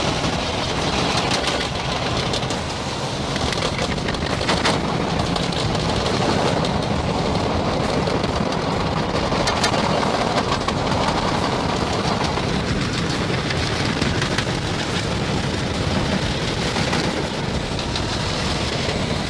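Tornado wind blowing hard around a car, heard from inside the cabin, with a constant rapid rattle of flying debris striking the car's body and windows.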